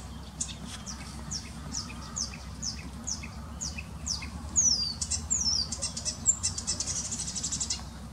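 Acrocephalus warbler, taken for a marsh warbler, singing out of sight in the reeds. It gives a run of quick repeated high notes that slide downward, about two or three a second, then a few longer, louder down-slurs, and a fast buzzy trill near the end.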